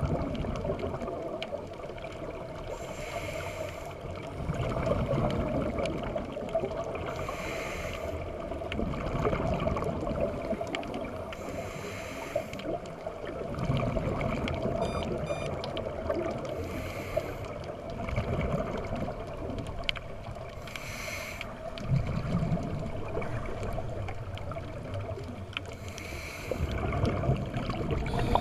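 Scuba diver breathing underwater through a regulator: a short hissing inhale about every four to five seconds, with the low bubbling rumble of the exhale between them.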